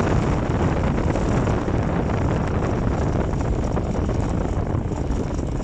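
Wind buffeting the microphone, a steady heavy rush, as the bicycle freewheels downhill with the brakes released.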